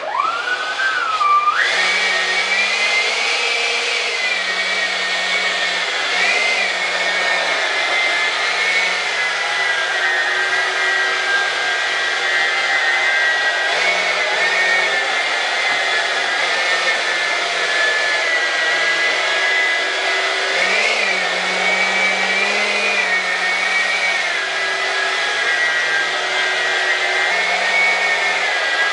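The Dr. Mad Thrust 68mm 10-blade electric ducted fan of an RC jet spooling up, its whine rising in pitch over the first two seconds. It then runs steadily, the pitch rising and dipping a few times with the throttle.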